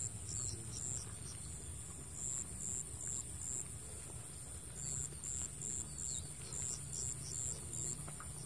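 Insects chirping: a steady high-pitched drone with a regular pulsing chirp about three times a second.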